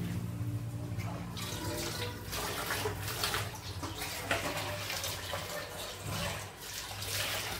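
Water running from a kitchen tap and splashing in a sink, in uneven surges.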